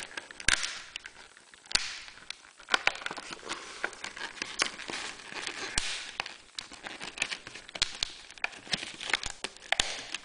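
Stiff clear plastic blister packaging crackling, creaking and snapping as hands pry its tightly sealed shell apart, with many irregular sharp clicks.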